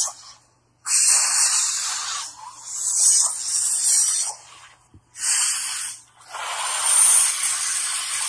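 Repeated bursts of loud hissing, four of them, each a second or two long, with short gaps between.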